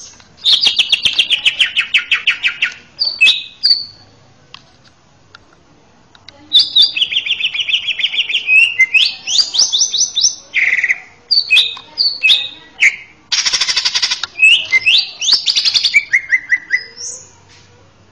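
Male green leafbird (cucak ijo) singing: fast trills of rapidly repeated notes mixed with clear whistled phrases that slide up and down. The song comes in two bouts, the first starting about half a second in and the second after a pause of about three seconds, with a dense loud trill in the middle of the second bout.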